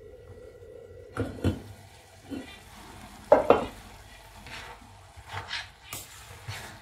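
A metal spoon stirring and scraping chopped mallow greens and bulgur in a stainless steel pot, with scattered clinks and knocks of metal and glass against the pot. The loudest knock comes a little over three seconds in.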